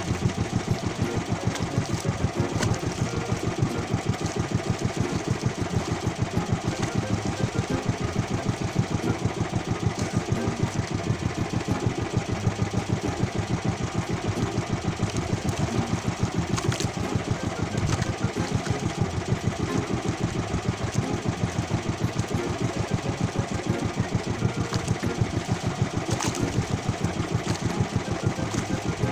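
Small fishing boat's engine running steadily, with an even, rapid beat.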